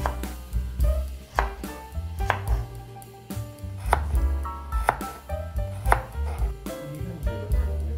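Kitchen knife chopping carrot on a wooden cutting board, a series of sharp blade strikes against the board, over background music.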